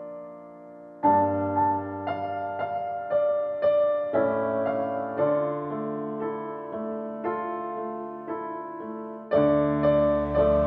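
Background music: a slow piano or keyboard passage. A held chord fades, then new notes enter with a bass note about a second in and move on about twice a second, and a louder, fuller chord with deeper bass comes in near the end.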